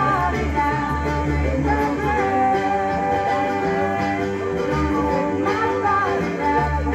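Live acoustic band playing a country/bluegrass-style tune: acoustic guitar and mandolin, with a voice singing the melody over them.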